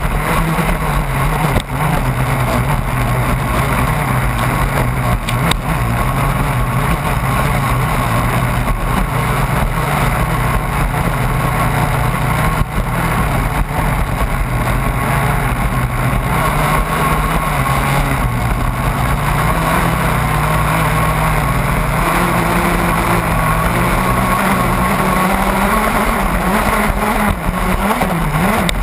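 The HPR CT04 radio-controlled racing catamaran's motor runs at speed, heard from on board. Its note holds fairly steady with small dips and rises, over a constant rush of water and wind.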